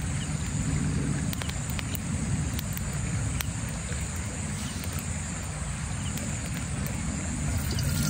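Forest creek running steadily, with a few scattered sharp crackles from the campfire.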